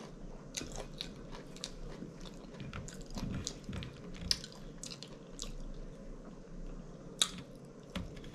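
Close-miked chewing with wet mouth clicks and lip smacks from a person eating loaded tater tots and a catfish sandwich. Small clicks come irregularly throughout, with one sharper click about seven seconds in.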